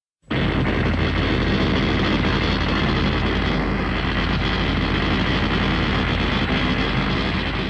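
MechaGodzilla film sound effect: a loud, steady mechanical drone with a deep hum under a dense noisy layer. It starts suddenly and begins to fade near the end.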